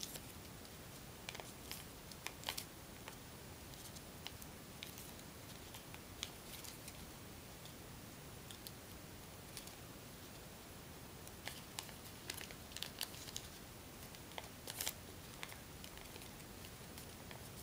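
Sheet of origami paper being folded and creased by hand into a petal fold: faint paper rustling and crinkling, with scattered soft crackles and ticks in small clusters now and then.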